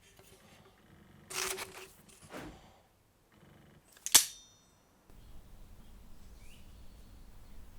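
Two short scraping noises, then a single sharp metallic clank with a brief high ring about four seconds in, followed by a faint steady low background.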